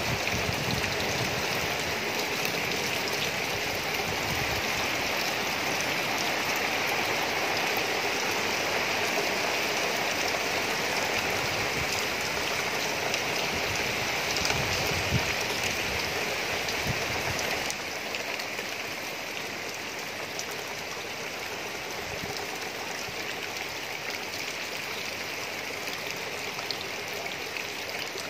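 Heavy rain falling steadily on leafy plants and a thatched roof, a dense, even hiss. It drops a step in loudness a little past halfway.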